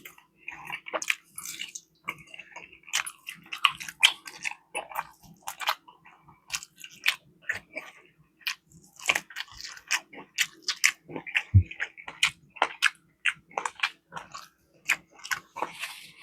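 Close-miked chewing and biting: a person eating with a dense, irregular run of wet smacks and mouth clicks, several a second.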